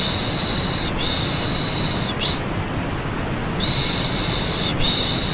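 Rhythmic 'shh, shh' shushing for soothing a baby to sleep, each hiss about a second long, two in a row, then a short pause and two more. Underneath is a steady white-noise rush.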